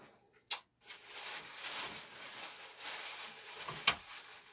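Rustling handling noise as tools and their packaging are moved about, with a short click about half a second in and a sharper click near the end.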